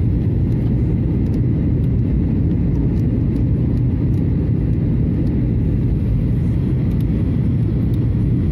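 Steady low rumble inside the cabin of a Boeing 737-800 in flight: its two CFM56-7 engines and the airflow over the airframe, with the flaps extended at low altitude on the approach.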